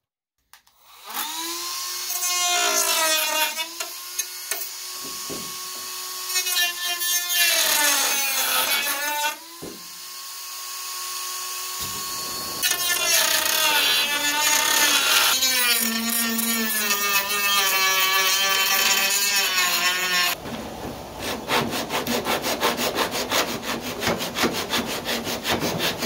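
A small power tool's motor whines as it cuts into the model plane's plywood and balsa fuselage structure. Its pitch sags under load and picks up again, and it stops and restarts several times. About 20 seconds in, this gives way to a fast, rhythmic rasping of wood.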